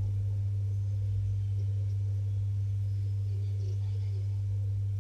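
A steady low hum that does not change, with faint background noise.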